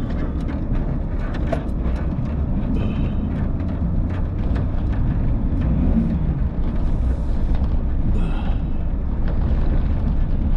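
A big Chevrolet being driven through snow: a steady low engine and road rumble, with scattered light clicks and knocks.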